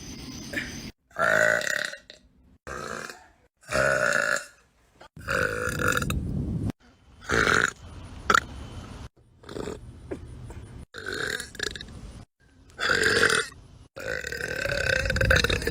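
A young woman burping over and over: about ten short belches in a row, each lasting under a second or so, several of them separated by abrupt silent gaps.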